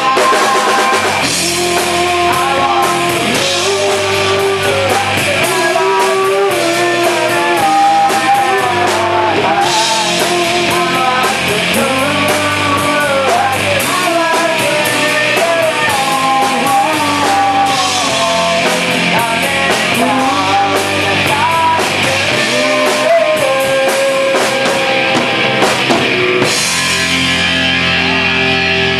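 A rock band playing live: electric guitar, electric bass and drum kit, with a sung vocal over them. Near the end the drums stop and a chord rings on.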